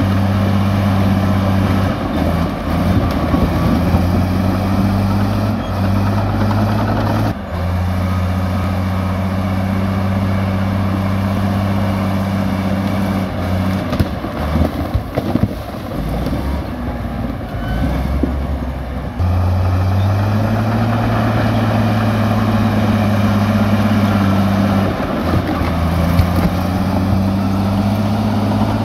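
Komatsu crawler bulldozer's diesel engine running under load as it pushes rocks, its pitch stepping up and down. For a few seconds in the middle the engine note drops back and irregular knocks and clatter come through.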